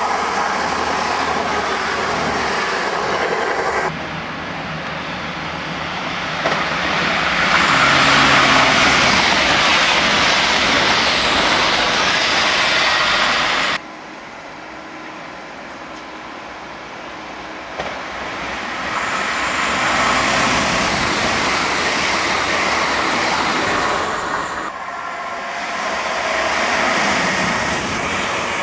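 Passenger trains running on a main line through a station, in several short clips with abrupt cuts between them. Each pass is a swelling rush of wheels on rails and train noise that builds as the train approaches and fades as it goes by.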